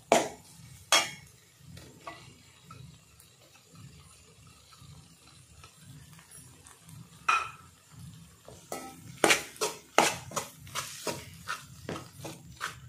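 Steel spoon stirring and scraping in an aluminium kadai, mixing mashed boiled potato into sautéed onion masala. A clink about a second in, another knock around seven seconds, then repeated scraping strokes, a couple a second, near the end.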